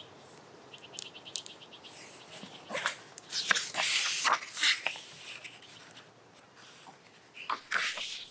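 Pages of a hardcover picture book being opened and turned by hand: paper rustling and crisp flicks, loudest in the middle and again near the end. A bird trills faintly in the first second or so.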